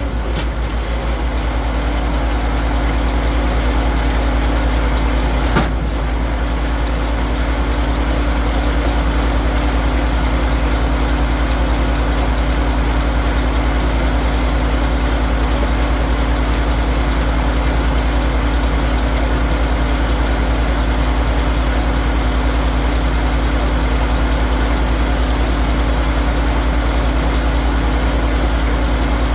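Engine of firewood-processing machinery running steadily at a constant speed, with a single sharp knock about six seconds in.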